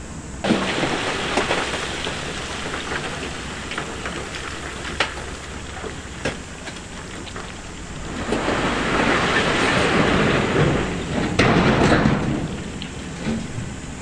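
A load of loose rock and stone sliding and tumbling in a rattling rush, with single stones knocking now and then. It starts suddenly about half a second in and swells loudest for a few seconds near the end before easing off.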